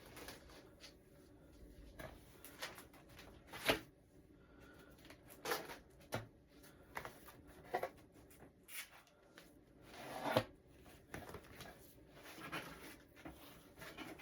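CDs being picked up, moved and set down: scattered light clacks and rustles, with sharper knocks about four, five and a half and ten seconds in.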